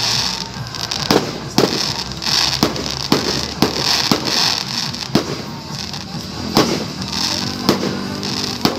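Aerial fireworks bursting overhead: a string of sharp bangs at uneven spacing, about one or two a second, over a hiss that swells and fades between them.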